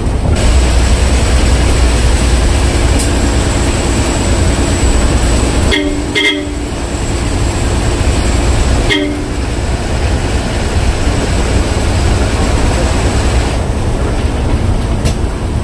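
Vehicle on the move with a steady low rumble and wind-like noise, broken by short horn toots a little under six seconds in and again near nine seconds.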